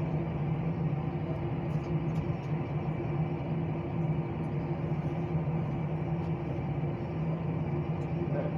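A steady, unchanging low mechanical hum with a constant pitch.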